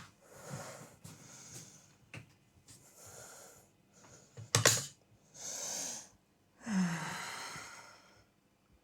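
A person straining: a run of heavy, breathy exhalations and a short falling grunt near the end, with sharp clicks about two and four and a half seconds in, as if forcing something that has jammed.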